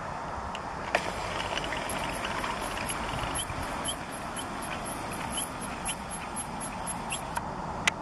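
A camera's lens zoom motor whirring in a high pitch with a rapid, even ticking as the lens zooms in. It starts about a second in and stops abruptly about six seconds later.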